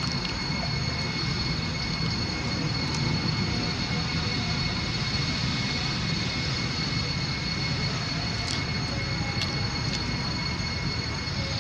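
Steady rumbling background noise with two faint, steady high-pitched tones running through it and a few faint ticks.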